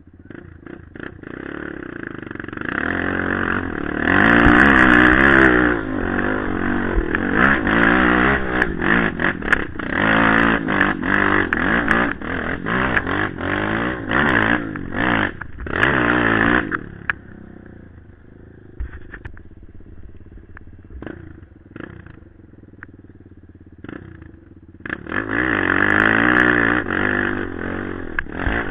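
Quad ATV engine heard from a camera on the machine, revving hard in rising and falling surges while climbing a rocky trail. About two-thirds of the way through it drops back to a low, quieter run with scattered knocks and clatter, then revs up loud again near the end.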